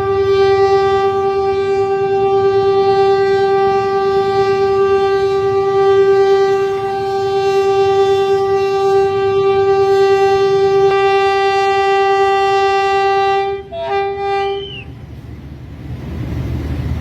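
A loud horn held in one long steady blast for about thirteen seconds, then a short second blast, after which low vehicle rumble remains.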